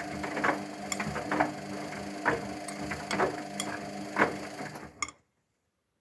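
Luxor WM 1042 front-loading washing machine in its wash phase, the drum turning: a steady motor hum with irregular sharp knocks and splashes of wet laundry tumbling in sudsy water. The sound cuts off suddenly about five seconds in.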